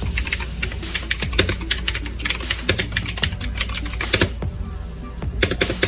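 Redragon K581 Sani mechanical keyboard with blue switches being typed on: fast, irregular, clicky keystrokes.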